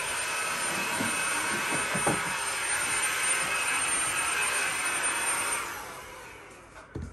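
Steady rushing noise, like a running appliance, with a faint high whine, fading out about six seconds in.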